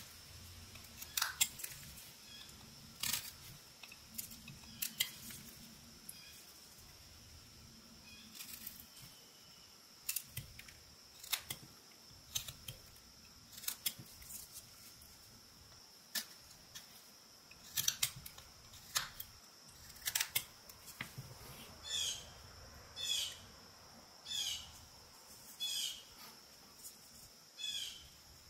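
Whittling knife cutting eastern white pine: sharp clicks and snaps as chips pop off at irregular intervals. About two-thirds of the way in, the cuts settle into a steady run of short shaving strokes about once every second and a quarter.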